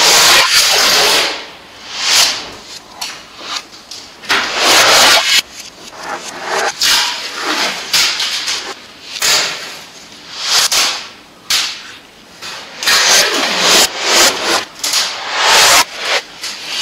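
Adhesive tape pulled off the roll over and over in loud, rasping bursts about a second long, with quieter handling of the tape between the pulls.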